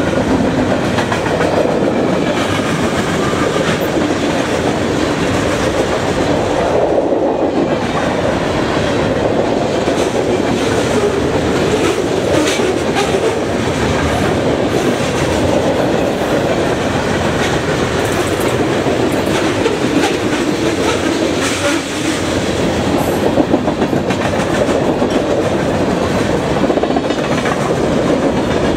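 Loaded freight cars of a fast freight train (tank cars, covered hoppers, coil cars and boxcars) rolling past at speed: a steady, loud rumble of steel wheels on rail with scattered clatter and clicks from the wheel sets.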